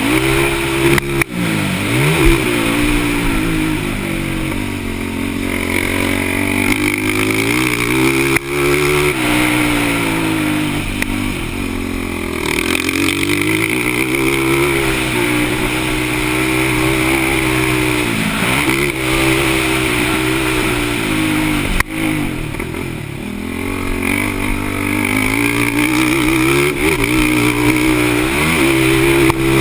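Racing quad (ATV) engine revving hard, its pitch climbing and dropping again every few seconds as the throttle is opened and shut around the motocross track.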